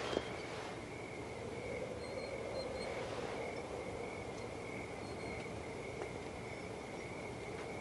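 Quiet night ambience: a steady, high cricket-like trill over a low wavering hum, with a single click right at the start.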